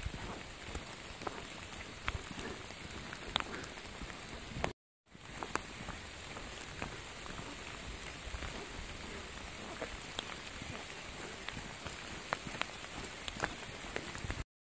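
Steady rain falling on forest and leaf litter, with scattered sharp drop ticks and the soft thuds of footsteps on a wet leafy trail. The sound cuts out for a moment about five seconds in.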